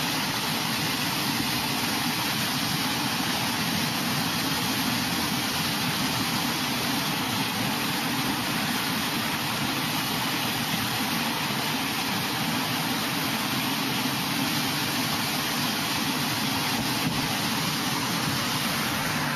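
Steady rushing of muddy floodwater pouring over a concrete spillway, an unbroken roar of churning water.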